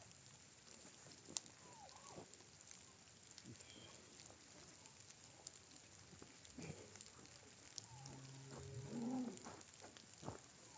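Faint hiss of light rain with scattered small drips and clicks. About eight seconds in comes a low call from a farm bird, lasting about a second.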